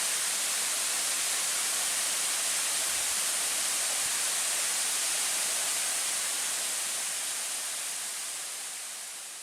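Steady rushing of a waterfall's falling water, fading out near the end.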